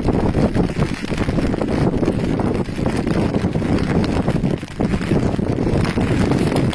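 Strong wind buffeting the microphone in loud, uneven gusts.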